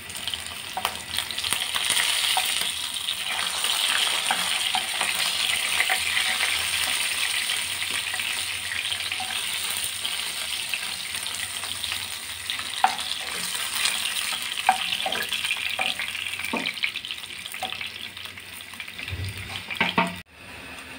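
Rohu fish steaks sizzling in hot oil in a wok, with a few sharp taps and scrapes of a spatula as the fried pieces are lifted out. The sizzle eases toward the end as the pan empties.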